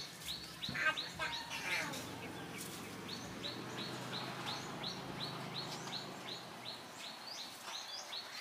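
A bird repeating a short, high chirp about three times a second, with a few louder calls in the first two seconds.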